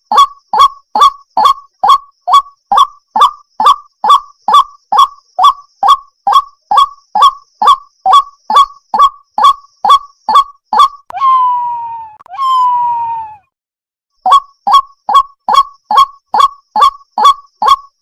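Water hen calling: a fast, even series of short, loud calls, about three a second. About eleven seconds in they give way to two longer calls that fall in pitch. After a pause of about a second, the rapid series resumes.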